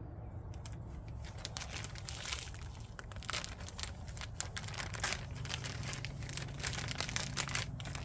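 Clear plastic bag crinkling and rustling in the hands as a part is pulled out of it, with irregular crackles throughout.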